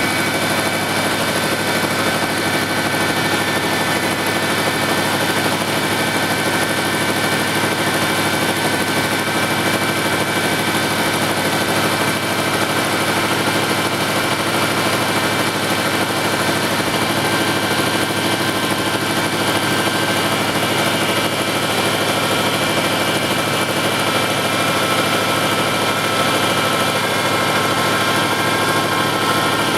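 Ford F-150's engine idling steadily with the remanufactured power steering pump whining, a sign of air bubbles mixed into the freshly filled fluid.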